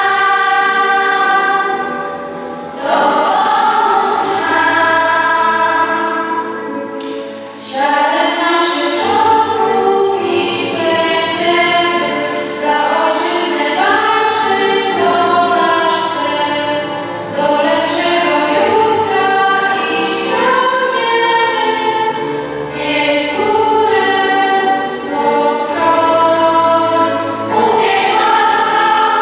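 Children's choir singing a song, with a short pause in the line about seven seconds in.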